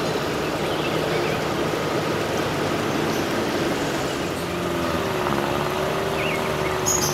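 Steady rushing wash of floodwater, with a car's engine hum coming in during the second half as the car drives through the flooded road.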